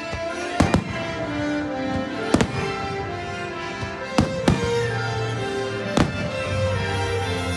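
Fireworks shells bursting over the show's music: six sharp bangs, a quick pair just over half a second in, one at about two and a half seconds, another pair just after four seconds, and one at six seconds.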